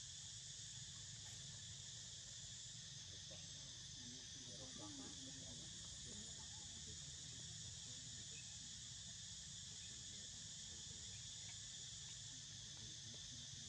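Faint, steady chorus of insects such as crickets shrilling without a break, over a low background rumble.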